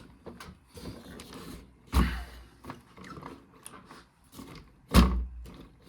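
Handling noise from a 1:10 RC rock crawler being worked by hand: scattered plastic clicks and rattles from its chassis and suspension, with two heavy thumps, about two and five seconds in.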